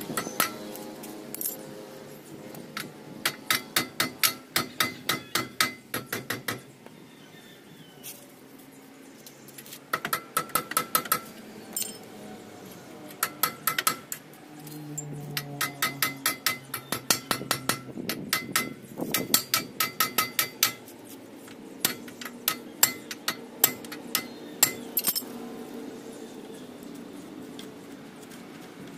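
Ratchet wrench clicking in bursts of rapid, evenly spaced clicks with short pauses between, turning the nut on the lock bolt of an Isuzu Elf truck's king pin in the steel steering knuckle.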